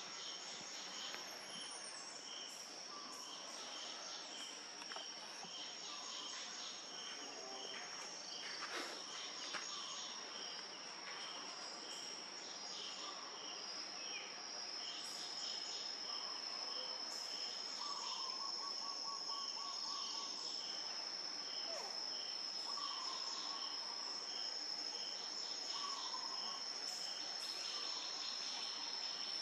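Forest insects: a steady high-pitched drone, with a second insect chirping about twice a second beneath it. Now and then there are short calls lower in pitch.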